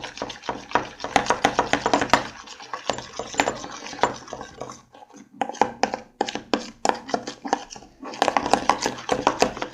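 Spoon stirring slime mixture in a bowl, just after borax activator is added, making fast repeated clicks and scrapes against the bowl with a few short pauses.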